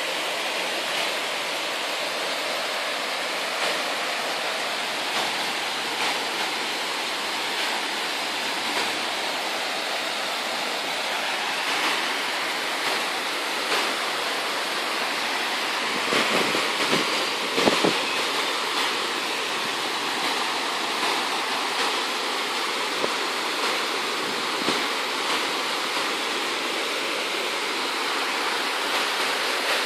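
Steady rush of water pouring over a small cascade on a canal, with a few brief knocks a little over halfway through.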